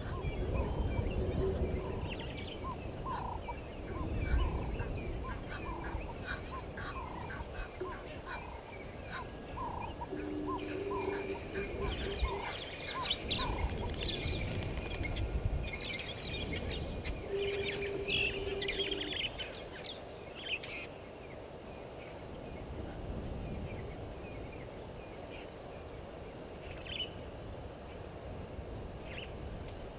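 Birds calling: one repeats a short note about every two-thirds of a second through the first half, and higher chirps and twitters join in around the middle before thinning out.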